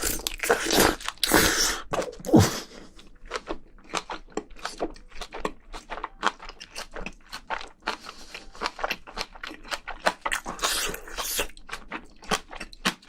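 Close-miked chewing of crunchy food from a spicy braised seafood dish, a quick run of sharp crunches several times a second, with a few louder bites in the first couple of seconds.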